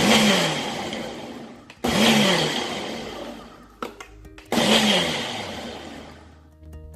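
Countertop blender pulsed three times while mixing oat pancake batter. Each burst starts suddenly and winds down over a second or two as the motor slows.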